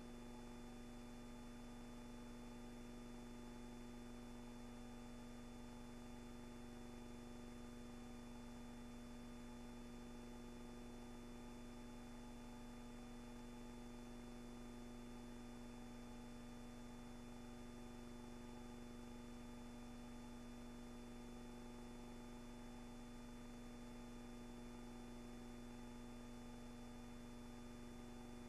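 Near silence: a faint steady electrical hum over hiss, unchanging throughout, with no other sound.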